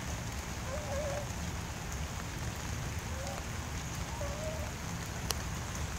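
Light rain falling on wet pavement and grass, a steady even hiss with a low rumble underneath. A few faint, short wavering tones come through, and there is a single sharp tick about five seconds in.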